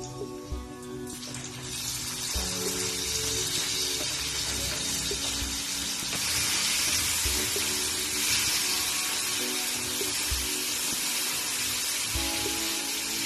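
Tomato and garlic frying in hot olive oil, sizzling steadily; the sizzle swells about a second in as the tomato hits the pan. Background music plays underneath.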